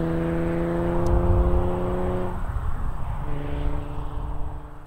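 Infiniti G37 Sport Sedan's VQ37VHR V6 with a Stillen cat-back exhaust, driving by at steady revs. Its steady exhaust note breaks off a little past halfway, comes back at a slightly lower pitch, and fades near the end.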